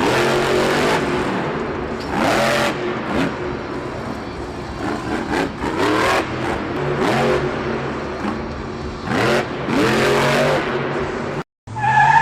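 Car engine revving over and over, each rev a rising sweep in pitch over a steady low drone, starting suddenly and cutting off abruptly near the end.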